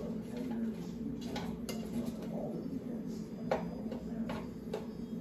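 A utensil clinking and knocking against a frying pan on the stove: about half a dozen scattered taps, the sharpest about three and a half seconds in, over a steady low hum.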